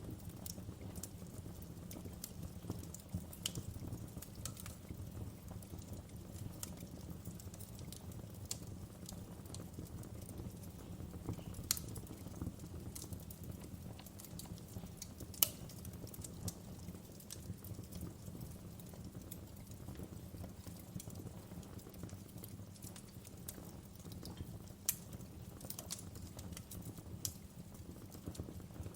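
Logs burning in a fireplace, crackling with scattered sharp pops over a steady low rumble; two louder pops stand out, around twelve and fifteen seconds in.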